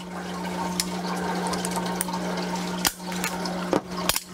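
Water running and splashing steadily through a recirculating deep water culture system over the constant hum of its pump. A few sharp clicks come from the plastic drip-kit tubing and elbow fittings being handled, most of them in the second half.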